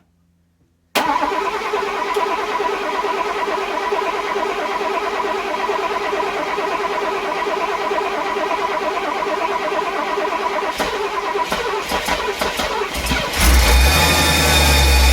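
Mercedes-Benz 450SL's freshly rebuilt 4.5-litre V8 being started for the first time: the starter cranks it with a steady whine for about twelve seconds, a few firings come near the end, and the engine catches about thirteen seconds in and runs, louder and deeper.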